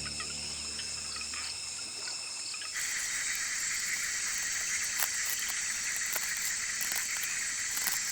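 Soft documentary music fades out over the first two seconds. About three seconds in, a dense, steady rainforest ambience cuts in: a high hiss with scattered clicks.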